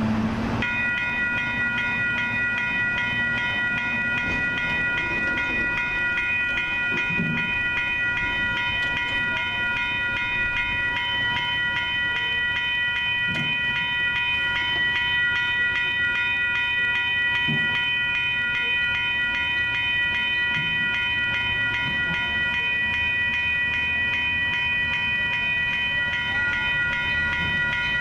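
Railroad grade-crossing warning bell starts just under a second in and keeps ringing steadily in a high, rapidly repeating ding: the signal that a train is approaching and the gates are down.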